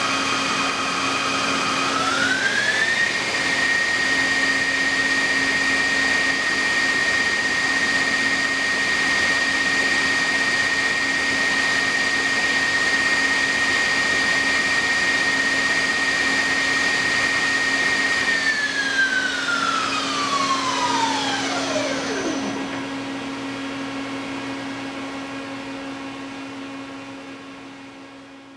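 Mori Seiki TL-40 CNC lathe running with a steady spindle-drive whine that steps up in pitch about two seconds in, holds, then falls away as the spindle winds down to a stop. A steady lower machine hum continues under it, and the whole sound fades out near the end.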